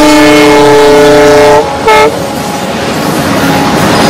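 Diesel locomotive horn sounding a long chord that cuts off about one and a half seconds in, followed by a short toot. After it, the freight wagons rolling past with a steady rumble of wheels on the rails.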